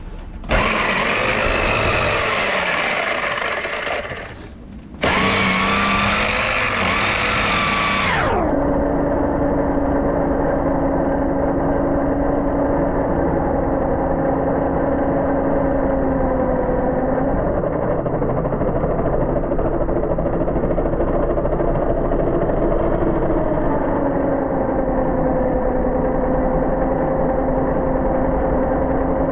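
An engine running at a steady speed, its pitch dipping slightly a couple of times. About eight seconds in, the sound turns duller and the drone becomes the only thing left.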